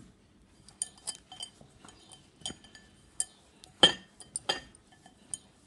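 Scattered light clinks and taps against a glass mixing bowl as a hand works dry flour inside it, the loudest pair a little under four seconds in.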